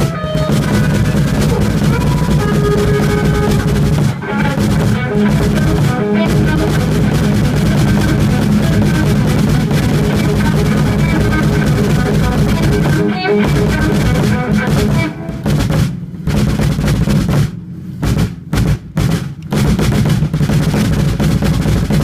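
Sakae 22-inch bass drum played with a double pedal in fast, continuous rolls. In the last few seconds the rolls break into shorter stop-start runs with brief gaps between them.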